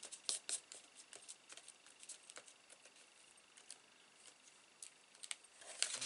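Light taps, clicks and rustles of cardstock being pressed flat with the hands and handled on a work mat, busiest just after the start and again near the end.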